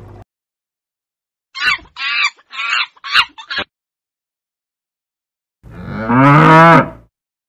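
A monkey giving five short, high calls in quick succession, then after a pause a calf mooing once, loudly, for about a second and a half.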